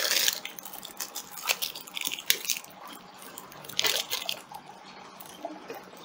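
Hands handling a fiber optic drop cable and its connectors: a short rustle at the start, a few small clicks, and another brief rustle about four seconds in.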